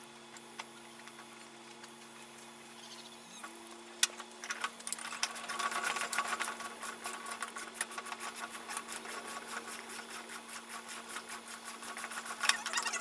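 Small air compressor or tire inflator filling a mower tire: a faint steady hum at first, then about four seconds in a click and a rapid, even clatter of the running pump that keeps going.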